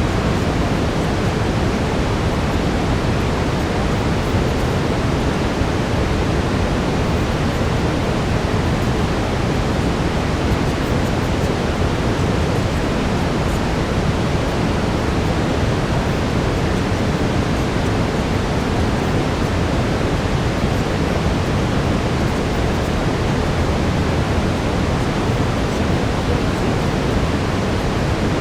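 Steady brown noise, a deep, even rushing hiss weighted to the low end, with no change in level.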